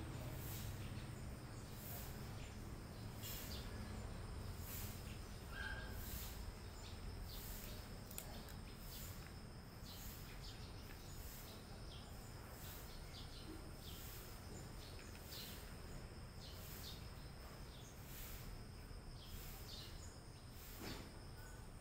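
Faint, irregular crunching of a cat chewing dry snack sticks from a plastic plate, over a steady high chirping of insects, about two chirps a second.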